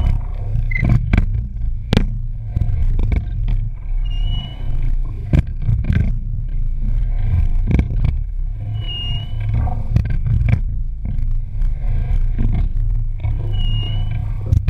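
A sculling boat being rowed, heard from a camera on the rigger. A steady low rush of wind and water runs throughout, with clicks and knocks from the oar and fittings, and a short high squeak once per stroke, about every four and a half seconds.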